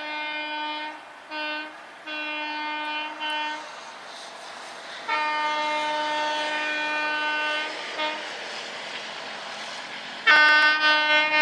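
Indian Railways train horn sounding a string of steady-pitched blasts, some short toots and some held about two and a half seconds, with a louder blast starting near the end.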